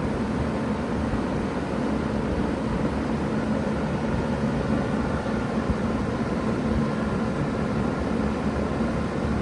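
2000 Bard 3-ton wall-hung heat pump running steadily in cool mode: an even rush of fan air with a steady hum from the running unit.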